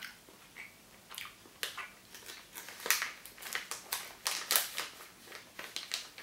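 Close-up chewing of a soft gummy candy: irregular wet mouth clicks and smacks, about two to four a second, starting about a second in.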